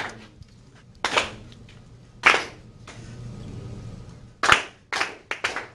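Students clapping a written rhythm together in unison: three single claps about a second apart, a gap held as a counted rest, then three quicker claps near the end.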